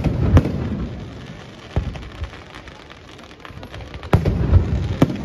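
Fireworks display shells bursting: two loud bangs right at the start, a single one near the middle and another cluster about four seconds in, each followed by a low rolling rumble.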